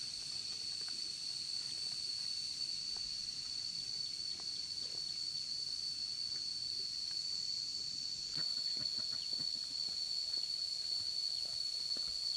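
Steady, high-pitched insect drone holding one unbroken tone, with faint scattered ticks and rustles beneath it; it grows a little louder about eight seconds in.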